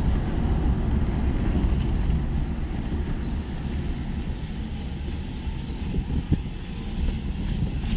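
Wind and road noise inside a moving car: a steady low rumble, with wind buffeting the microphone at an open window.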